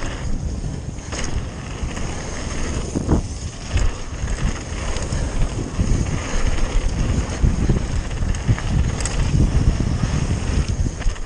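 Mountain bike descending a gravel trail at speed, heard from a rider-mounted camera: a steady rush of wind on the microphone over the rumble of tyres on gravel, with a few sharp clicks and knocks from the bike.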